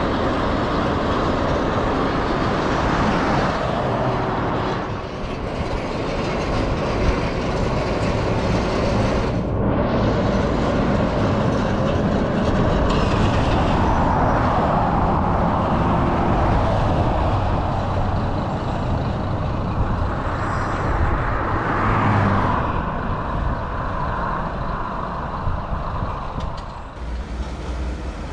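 Heavy vehicles passing by: a continuous rumble that swells and fades several times, with a short dip about five seconds in.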